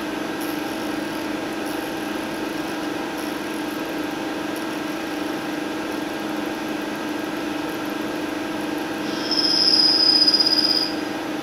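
Spindle of a Biglia B301 CNC lathe running steadily with a humming whine. About nine seconds in, a high-pitched squeal lasts just under two seconds as the reference tool grazes the spinning workpiece, the touch-off used to set the part's Z zero.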